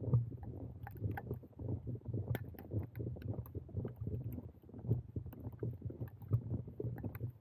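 Wind buffeting a small action camera's microphone in a snow storm: a gusty low rumble, with scattered small crunches and ticks on top.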